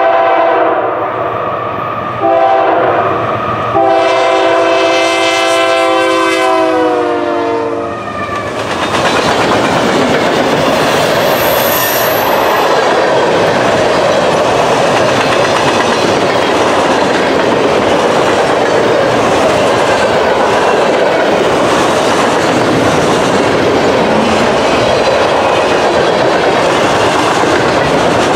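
Freight locomotive air horn sounding a chord in three blasts, the last one long, its pitch dropping as the lead locomotive passes close by. It is followed by the steady rumble and clickety-clack of loaded flatcars rolling past.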